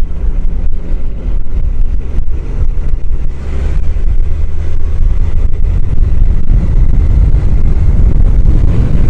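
Wind noise on a helmet microphone mounted behind the chin-bar air vent, over a Honda CBR1000F's inline-four engine running at road speed. The wind gets louder about three and a half seconds in.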